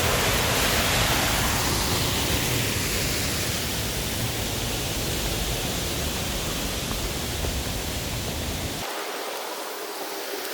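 Steady rushing of a mountain stream and its waterfalls. About nine seconds in, the deep rumble cuts out abruptly and the rush goes on a little quieter.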